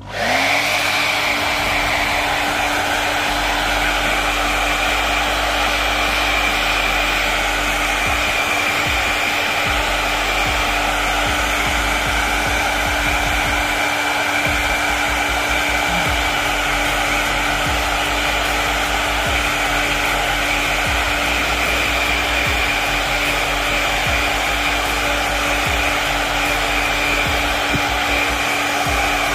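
Handheld hair dryer switched on, its motor rising quickly to a steady whine over a rush of air, with an uneven low rumble, as it blows freshly rinsed hair dry.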